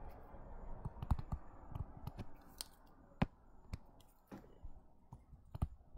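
Stylus tapping and clicking irregularly on a tablet screen during handwriting, with about a dozen sharp ticks over a faint steady background hiss.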